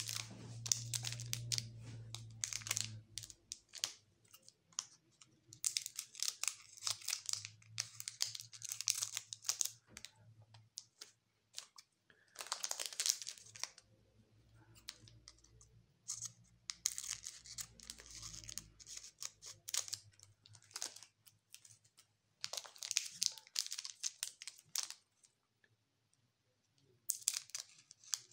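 Foil wrappers of Magic: The Gathering booster packs crinkling as they are handled and sorted, in clusters of a second or few at a time with short quiet gaps between.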